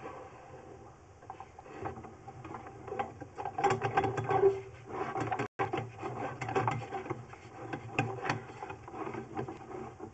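Irregular clicking and rattling of a push-rod drain inspection camera being fed down a drain pipe, over a low steady hum.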